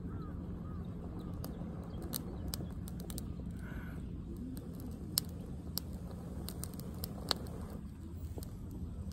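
Steady low outdoor rumble with a few sharp clicks spread through it and a short bird chirp about halfway through.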